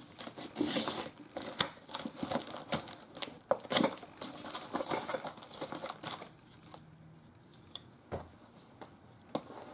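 A cardboard parcel being opened by hand: packing tape cut and torn, cardboard flaps pulled open and plastic wrapping crinkling, a quick run of rustles, rips and ticks that thins out after about six seconds.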